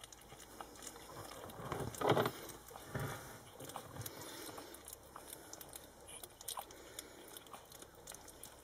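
Shih Tzu puppies about three and a half weeks old licking and nibbling at each other's faces: soft wet licking and smacking with many small clicks. A louder short sound comes about two seconds in and again near three seconds.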